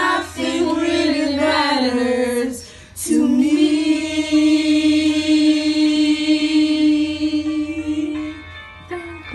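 A teenager singing karaoke into a microphone: a short phrase that moves up and down in pitch, then one long held note of about five seconds.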